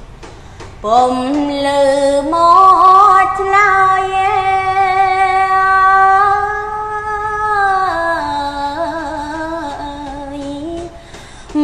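A woman's solo voice chanting Khmer smot. The voice enters about a second in, climbs and holds one long, steady note for several seconds, then drops to a lower, wavering line that fades near the end.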